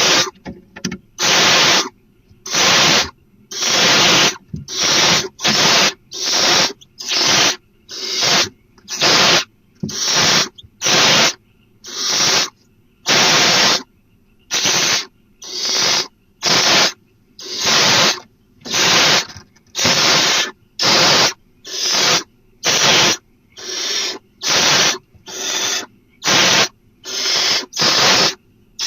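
Barn owl giving harsh hissing screeches over and over, about one a second, each call under a second long.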